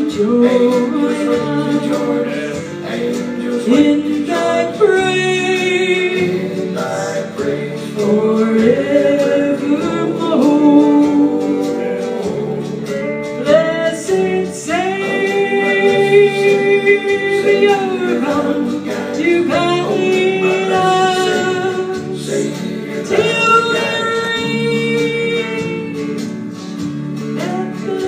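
A woman singing a gospel song into a microphone, holding long notes, over an instrumental accompaniment with guitar.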